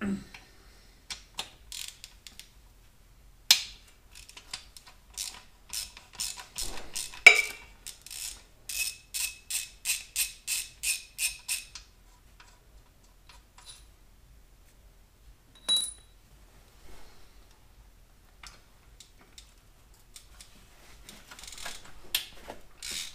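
Hand ratchet wrench clicking as bolts are backed out of a 413 engine's water pump: scattered clicks, then a steady run of about two or three ringing clicks a second, with the bolts coming out easily.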